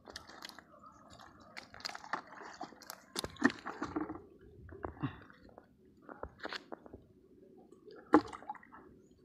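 Hands sorting a heap of freshly caught wet fish tangled in a fishing net with dry leaves: irregular rustles, wet handling noises and clicks in scattered bursts, the sharpest about three and a half and eight seconds in.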